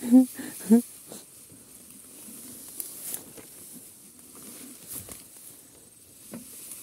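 Two short vocal calls from a rider in the first second, then a quiet stretch of faint hiss with a few light clicks; no engine running.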